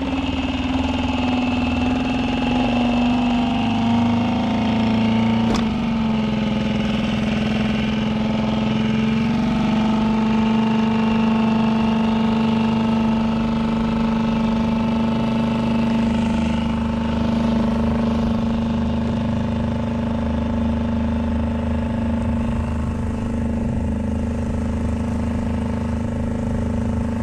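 Small outboard motor running steadily just after starting, its pitch easing down slightly over the first couple of seconds. A single sharp click comes about five and a half seconds in.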